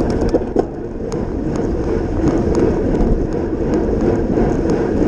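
Wind rushing over a racing bike's onboard camera microphone together with the road and tyre rumble of riding at speed, steady throughout, with scattered light clicks and ticks.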